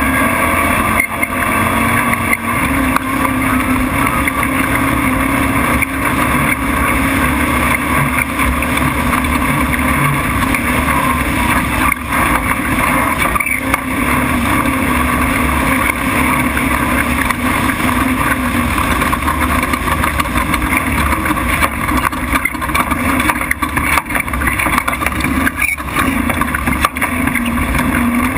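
Class 1450 off-road race truck's engine running hard at steady speed, heard through a hood-mounted camera, with a few sharp knocks from the rough dirt track.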